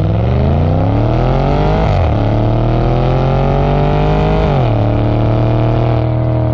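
Stage 3 tuned Audi S6 twin-turbo V8, fitted with RS7 turbos, accelerating hard through the gears. The exhaust note climbs in pitch, drops sharply at an upshift about two seconds in, climbs again, and drops at a second upshift near the end.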